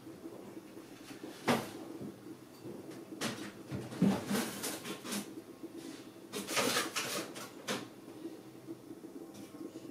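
Scattered kitchen knocks and clatter from things being handled off to the side: a sharp knock about a second and a half in, a cluster around four seconds, and another run between six and a half and eight seconds, over a faint steady hum.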